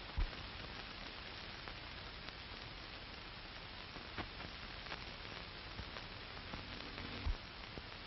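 Steady hiss of an old optical film soundtrack, with scattered faint clicks and two low thumps, one just after the start and one about seven seconds in.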